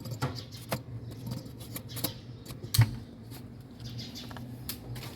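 Scattered small clicks and light knocks from handling wiring and plug-in connectors, with one sharper click about three seconds in, over a low steady hum.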